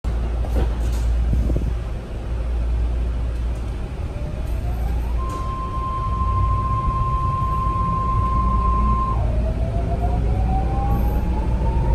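BART train heard from inside the car while arriving at a station: a steady low rumble of the wheels on the track with a few light knocks in the first two seconds, and an electric whine from the propulsion that rises, holds one high note for about four seconds, drops and then climbs again.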